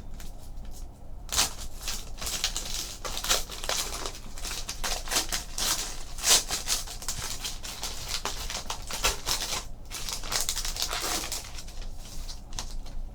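A trading-card box topper's packaging being opened and handled: irregular crinkling and rustling with short sharp rips, the loudest about six seconds in.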